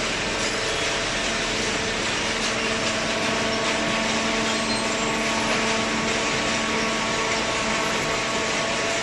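Hydraulic cardboard baler running, its motor and pump giving a steady hum with several even tones over a constant whir.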